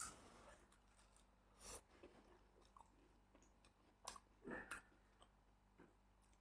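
Faint chewing and mouth sounds of someone eating close to the microphone, a few soft, scattered smacks and crunches. The loudest come about four seconds in.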